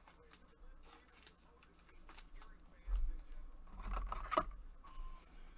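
Trading card being handled and slid into a clear plastic sleeve and top loader: light rustling and scraping of card and plastic with scattered clicks, and a few dull knocks between about three and four and a half seconds in.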